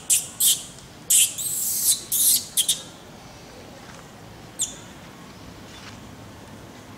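Short, sharp, high-pitched animal calls: a quick run of them in the first three seconds, one drawn out longer, then a single call about four and a half seconds in.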